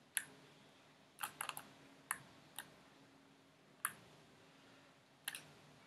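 Faint, scattered clicks of a computer mouse and keyboard: about ten short, sharp clicks, several in a quick cluster about a second in, over a faint steady hum.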